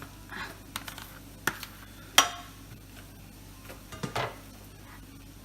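A spoon clinking and scraping against a cooking pot while rice is spread in a layer, with two sharp clinks about a second and a half and two seconds in.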